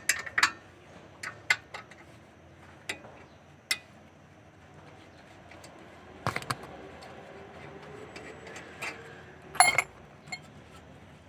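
Scattered sharp metallic clinks and knocks of a wrench, bolts and a rear brake caliper as the caliper is unbolted and taken off, with the loudest clatter near the end.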